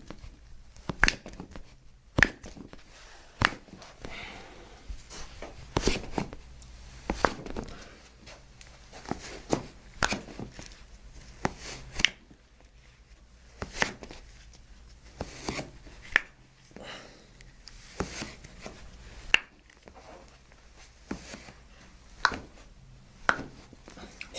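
A chiropractor cracking a patient's toe joints one after another: a long series of sharp, separate pops, roughly one a second.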